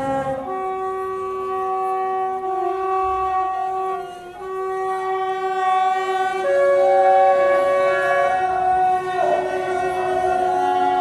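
A single-reed wind instrument and a viola hold long notes, two or three pitches sounding together. The chord shifts to new pitches every couple of seconds, with a short dip about four seconds in.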